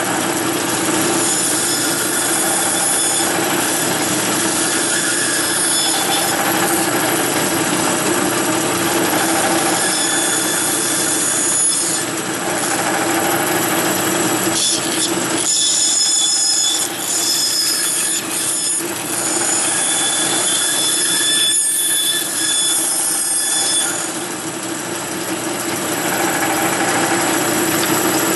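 Bandsaw running with a steady motor hum while its blade cuts through a wooden block. The noise eases off briefly several times and dips for a couple of seconds near the end.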